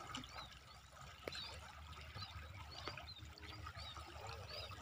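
Floodwater sloshing and trickling faintly around a person wading waist-deep through a flooded rice paddy.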